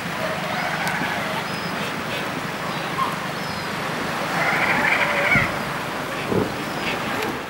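Surf and water washing on a shingle beach, with scattered animal calls from the seal and penguin colony, one louder call about halfway through.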